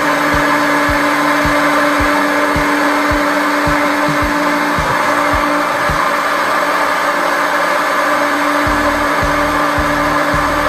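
Handheld electric heat gun running steadily, its fan blowing hot air onto a heating-manifold pipe fitting, with a steady hum under the blower noise.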